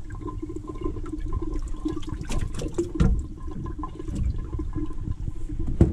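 Water splashing and sloshing in a boat's live well as a hand grabs a walleye and lifts it out, with the unplugged well draining. A few sharp knocks come in the middle and near the end.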